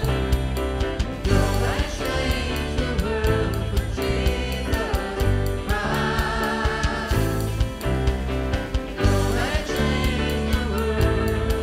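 Live worship band playing: electric guitars, drum kit and keyboard under sung vocals, with a steady drum beat.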